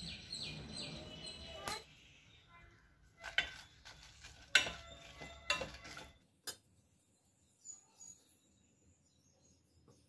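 Small birds chirping in a quick run of short falling notes for about the first second. Then a handful of sharp knocks and clinks of kitchen utensils, the loudest about three and a half and four and a half seconds in.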